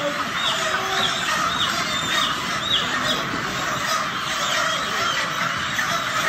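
A large flock of broiler chickens about 40 days old, a dense steady chatter of many birds' peeping and clucking, with a run of short high calls about twice a second in the first three seconds.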